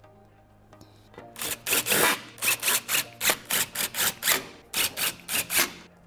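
Hand ratchet tightening bumper fasteners, worked back and forth in quick rasping strokes, about three a second. The strokes start about a second in and stop just before the end.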